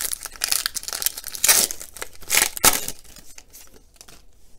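Wrapper of a pack of football trading cards crinkling and tearing as it is ripped open by hand. The loudest rips come about halfway through, and the sound goes quieter after about three seconds.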